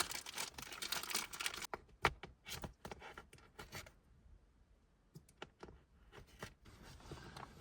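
Knife cutting smoked sausage on a plate: a quick run of clicks and scrapes for about the first two seconds, then scattered taps, a short lull, and a few more clicks near the end.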